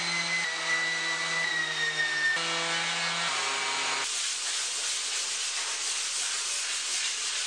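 Electric sander with a dust-extraction hose running steadily on a welded steel frame, its pitch shifting slightly at a few quick cuts. About four seconds in it gives way to the steady rasp of hand sanding with a sanding block, smoothing car body filler on the steel tubing.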